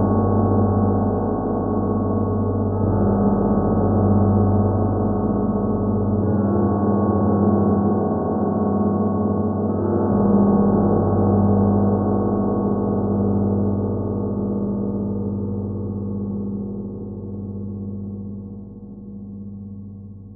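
Audio-modelled Moscow Kremlin bells ringing a reconstructed historical peal. Deep, heavy bell strokes come every three to four seconds, the last about ten seconds in, and then the ringing fades away.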